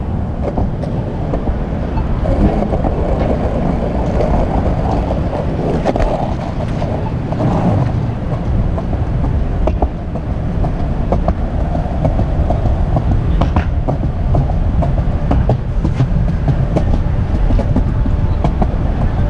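Heavy steady rumble with scattered sharp clacks from moving along a city sidewalk with the camera, street traffic behind it.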